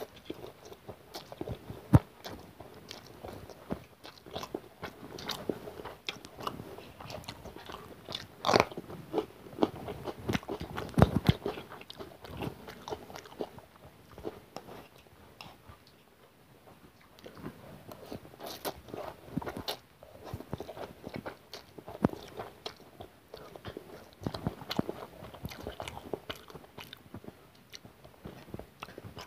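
Close-up chewing and crunchy biting of fried chicken pakora and noodles, full of irregular sharp clicks and crunches, easing off briefly about halfway through.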